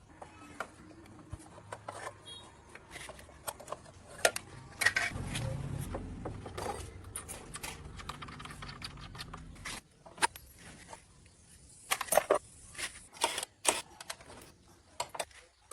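Scattered metallic clinks and knocks of steel parts and tools being handled, with a steadier low rumble between about five and ten seconds in.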